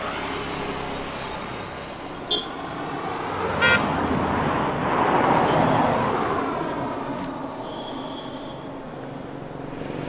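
A vehicle passes along the road, its noise swelling to a peak about halfway through and then fading away. Two short high toots sound a few seconds in.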